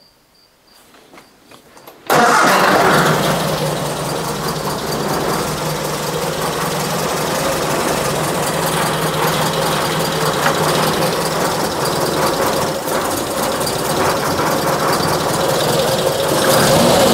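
1966 Triumph Spitfire's 1147cc four-cylinder engine firing up about two seconds in, on its newly fitted electronic ignition, then running steadily at idle and rising a little near the end. Its ignition timing is far too advanced, about 32 degrees at 700 rpm.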